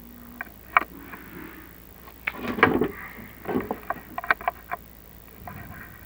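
Irregular sharp clicks and knocks with some scraping, in a louder cluster about two and a half seconds in and a quick run of clicks around four seconds: a chimney inspection camera and its rods knocking against the brick and broken flue tile as they are worked down the flue.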